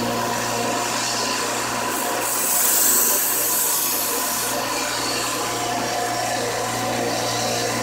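Steel knife blade being drawn across a sharpener, a scraping rasp in strokes of a couple of seconds each, over a steady low hum.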